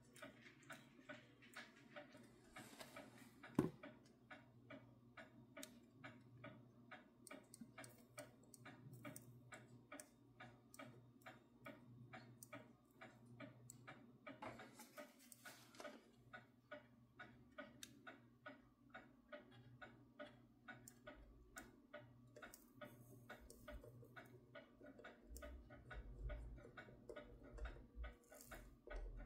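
Near silence with a clock ticking at a fast, even rhythm, over a faint steady low hum; one louder click a few seconds in.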